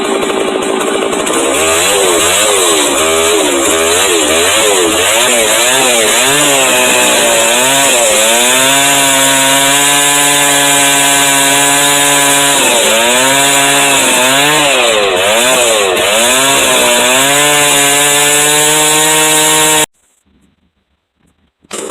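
Chainsaw with a small-cutter chain ripping oak lengthwise, its engine pitch rising and dipping again and again as it loads and unloads in the cut, with stretches of steady full throttle. The sound cuts off abruptly about two seconds before the end and comes back just at the end.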